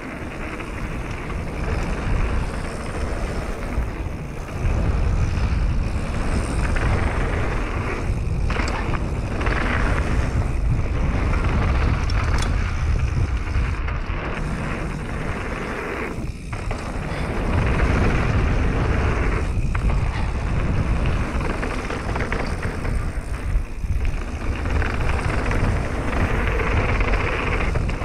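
Mountain bike rolling fast down a loose gravel trail: tyres rumbling and rattling over stones, with heavy wind noise on the microphone. It gets louder about four seconds in and drops briefly twice in the middle.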